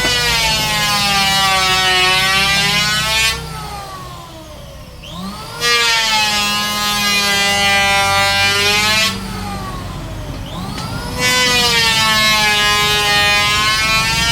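Woodworking power machine cutting wood in three passes of about three seconds each, its whine sagging in pitch under the load of each cut and rising again as the cut ends, with the machine running more quietly between passes.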